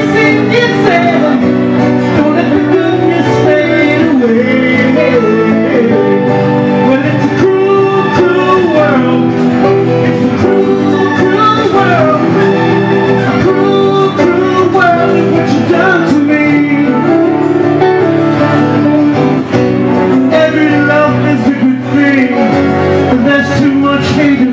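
Live music: a man singing while playing an acoustic guitar, with the sung melody carried over the steady guitar chords.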